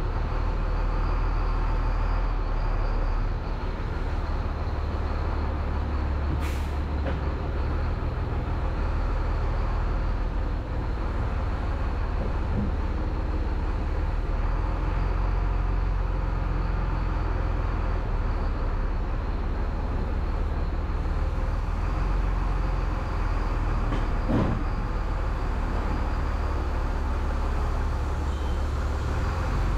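Heavy truck's diesel engine running steadily at low revs, heard from inside the cab as the truck reverses slowly. There is a short knock about four-fifths of the way in.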